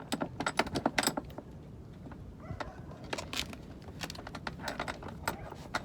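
Irregular clicks and clinks of metal sailing hardware being handled and opened while a sheet is rigged through a block.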